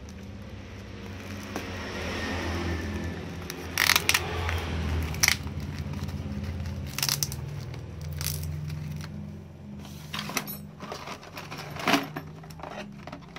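Plastic-wrapped parcel being handled and turned over, its wrapping crinkling with several sharp crackles.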